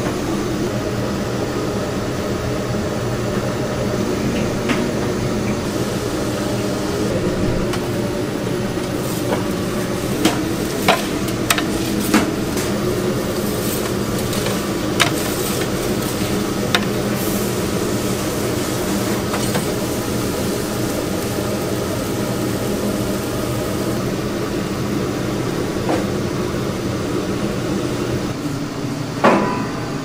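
Pizza kitchen noise: a steady machine hum, like an oven or extractor fan. Over it come a few sharp knocks of tools on a hard surface, four in quick succession around the middle and a louder clatter near the end.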